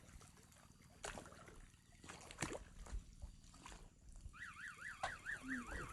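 An electronic alarm tone starts about four seconds in and warbles rapidly up and down in pitch, several sweeps a second. Before it come a few faint sharp clicks.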